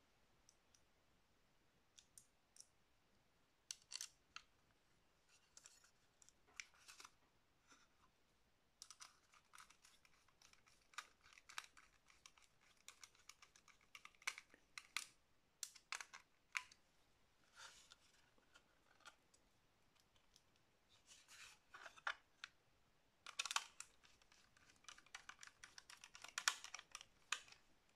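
Small screws being turned into an SSD's metal mounting bracket with a hand screwdriver: faint, irregular clicks and scraping of the bit in the screw heads and of the metal parts being handled, busiest in the middle and again near the end.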